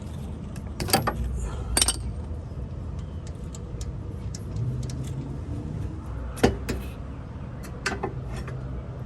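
Scattered sharp metallic clicks and clinks of hand tools working on a car's rear brake caliper as its bolts are undone, about half a dozen knocks over a low steady hum.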